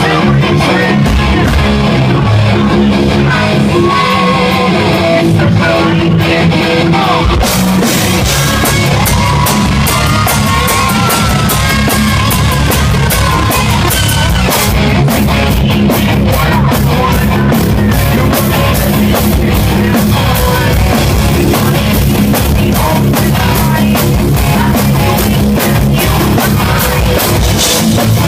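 Live hard rock band playing a song's opening: electric guitar with bent notes over bass, then drums and cymbals crash in about seven seconds in and the full band plays on.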